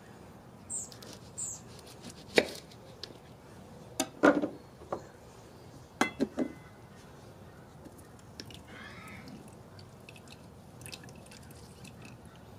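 Knife cutting a lime on a wooden surface: a few sharp knocks of the blade on the wood, in small groups about two, four and six seconds in.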